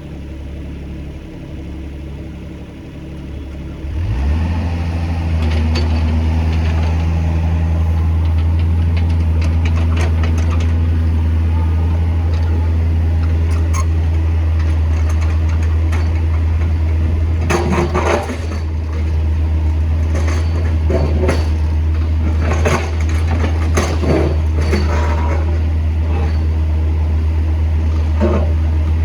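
Backhoe's diesel engine idling, then throttled up about four seconds in and running steadily at higher revs. Repeated knocks and clanks start about two-thirds of the way through.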